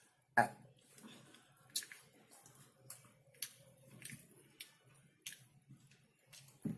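Close-miked eating sounds of chicken being chewed: a sharp, loud mouth sound about half a second in, then short, wet, crackly chewing clicks every half second to a second.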